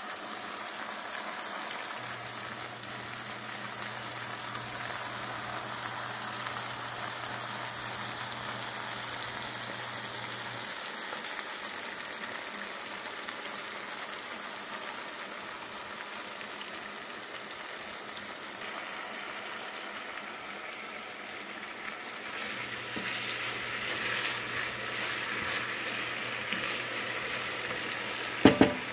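Onion, sweet peppers, carrot and tomato frying in oil in an enameled cast-iron pot: a steady sizzling hiss that grows louder a few seconds before the end. A low hum comes and goes, and a sharp knock sounds near the end.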